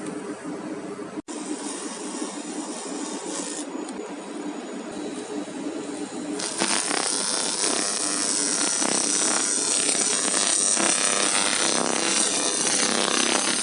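Laser wheel cleaning machine running with a steady hum. About six seconds in, a louder, high hissing crackle joins it.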